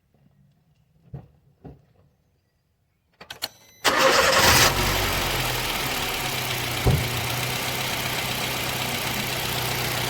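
A few clicks, then a car engine, jump-started from a portable booster pack, catches about four seconds in, flares briefly and settles into a steady idle.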